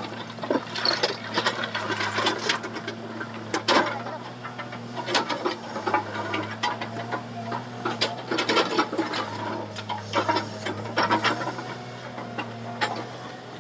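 Excavator diesel engine running with a steady hum, with irregular clicking and rattling over it.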